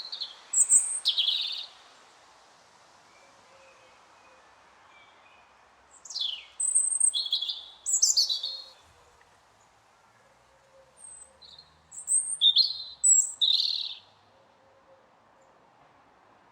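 Robin singing: three short phrases of high, thin notes and quick downward slides, separated by pauses of a few seconds, over a faint steady hiss.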